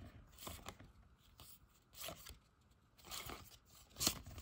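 A stack of 1992-93 Upper Deck hockey cards being flipped through by hand: faint, scattered papery slides and light taps as cards are moved through the stack.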